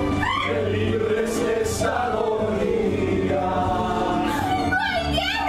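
An ensemble of voices singing together over instrumental accompaniment, the melody rising and falling over steady low held notes.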